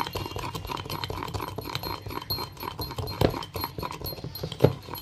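Metal spoon beating instant coffee and sugar in a glass, clicking against the glass several times a second as the mixture is whipped into a thick paste. Two louder short sounds stand out about three and four and a half seconds in.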